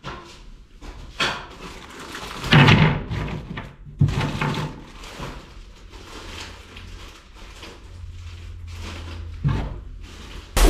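Scattered knocks, clunks and scrapes of things being handled and set down on a workbench, the loudest about two and a half and four seconds in.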